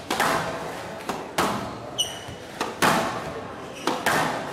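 Squash rally: about eight sharp cracks of racket striking ball and ball hitting the walls, coming every half second to a second, echoing in the hall, with a brief squeak of court shoes on the floor about two seconds in.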